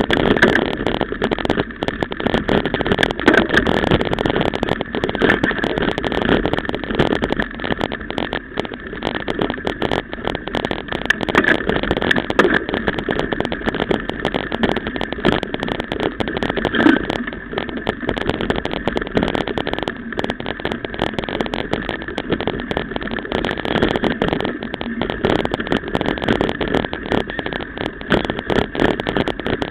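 Mountain bike ridden over a bumpy grass track: a continuous rumble with dense, irregular rattling and knocking, picked up by a camera mounted on the bike.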